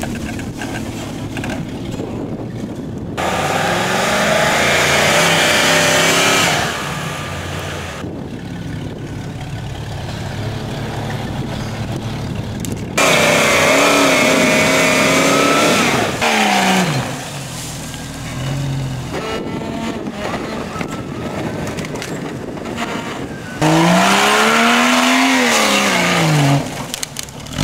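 Off-road 4x4 trial vehicle engines revving hard on a steep dirt climb, in three loud bursts whose pitch rises and then falls. Between the bursts, a lower steady engine note runs on.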